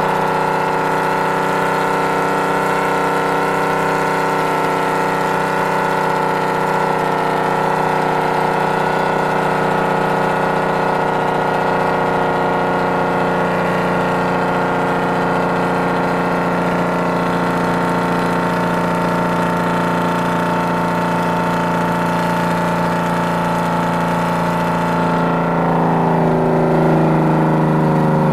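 Detroit Diesel 6-71 two-stroke inline-six in a Ford L9000 truck, running steadily under way, heard from inside the cab. Near the end the engine note drops in pitch and settles as the engine speed changes.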